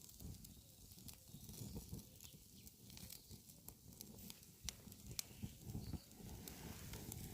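Wood campfire crackling: scattered sharp pops at irregular intervals over a low, steady rumble.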